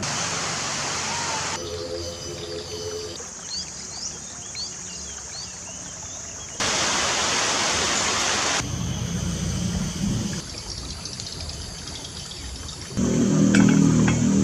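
Short countryside sound clips cut together, switching abruptly every couple of seconds: rushing or trickling water, a bird giving several quick rising chirps, more rushing water, then low rumbling sounds that grow louder near the end.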